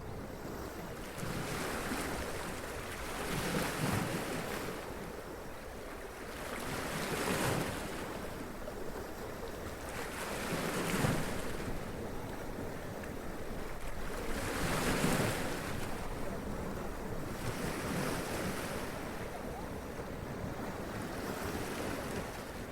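Sea waves running up onto rocks and splashing, a surge of spray about every four seconds over a steady wash of surf, with low wind rumble on the microphone.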